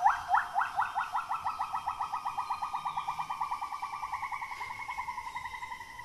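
Bornean gibbon calling: a run of rising whoop notes that speed up into a fast, bubbling trill, slowly sliding lower in pitch and fading near the end.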